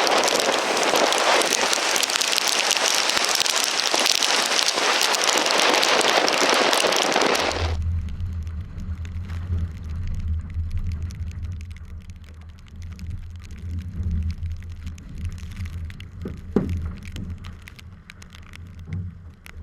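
Loud hiss of water spray and rushing water around a Finn dinghy in heavy wind. About seven and a half seconds in it cuts off abruptly to a low rumble of wind buffeting the microphone, with one sharp click near the end.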